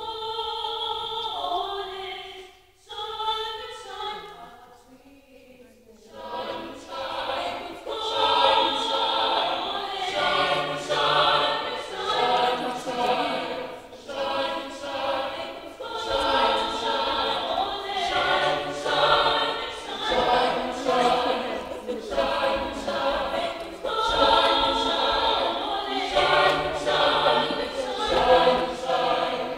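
Swazi school choir singing unaccompanied, many voices together in harmony. The singing starts thin and quiet, and the full choir comes in, louder, about six seconds in.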